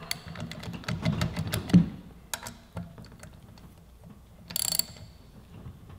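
Socket ratchet clicking as it tightens brake rotor bolts to a wheel hub: a run of rapid clicks over the first two seconds, a few single clicks, then a short quick burst of clicks about four and a half seconds in.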